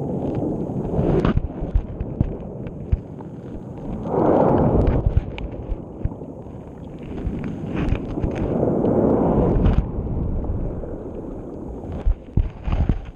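Underwater surge heard through a GoPro being dragged along the sea bed: muffled rushing swells about every four to five seconds, with sharp knocks and scrapes as the camera tumbles against the bottom.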